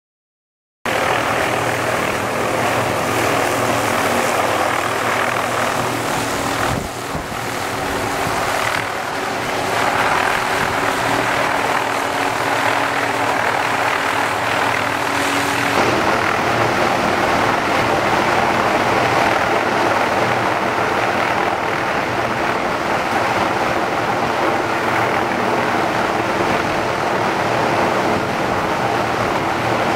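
Helicopter rotor and engine noise, loud and steady, starting abruptly about a second in.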